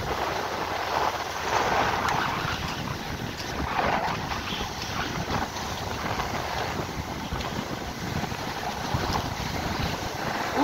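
Surf washing in on the beach, with wind blowing across the microphone.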